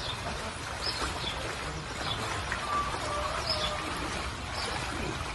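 Small birds chirping, a short call about once a second, over a steady rush of flowing water.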